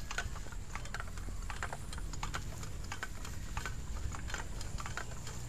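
Bicycle rolling over bumpy grass: irregular light clicking and rattling, several clicks a second, over a steady low rumble.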